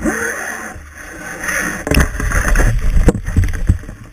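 Sea water splashing and rushing against a boat's side, louder from about two seconds in, with a few sharp knocks.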